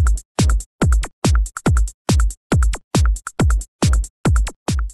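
Electronic dance music with a drum-machine beat: a heavy kick drum dropping in pitch on each hit, about twice a second, each followed by a couple of short crisp hits.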